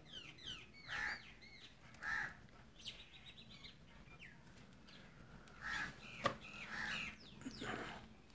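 Birds calling: small birds chirping with quick rising and falling notes, and a crow cawing several times. A single sharp click about six seconds in.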